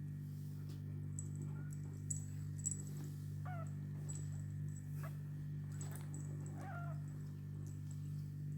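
Kittens giving two short, faint mews, about three and a half and six and a half seconds in, over a steady low hum and a few small ticks.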